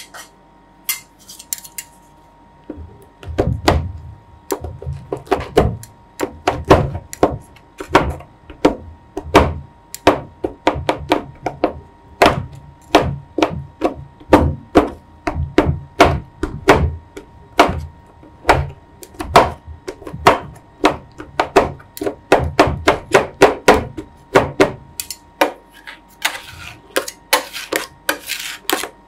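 Metal spatulas chopping frozen raspberries and chocolate into ice cream base on the steel freezing plate of a roll ice cream machine: a rapid run of sharp clacks, about two to three a second, starting a few seconds in, with some scraping toward the end.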